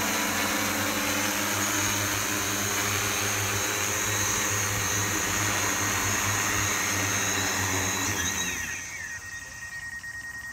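Multirotor agricultural spray drone, running on newly replaced motors and ESCs, hovering low and landing. Its rotors make a loud, steady drone with several humming tones. About eight seconds in they wind down, falling in pitch, and a thin steady high tone is left.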